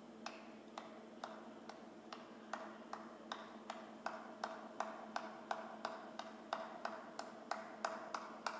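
A series of sharp clicks over a faint steady hum, about two a second at first, speeding up to about three a second and getting louder.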